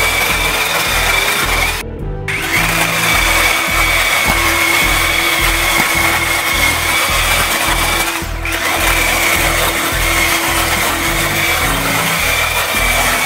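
Battery-powered mini chainsaw cutting through a dead tree branch: a steady high motor whine with the chain chewing wood. It stops briefly about two seconds in and dips again around eight seconds. Background music with a steady beat plays underneath.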